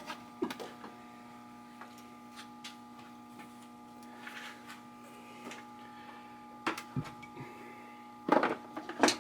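Steady electrical mains hum, with scattered small clicks and a few louder clatters near the end as wiring parts are handled.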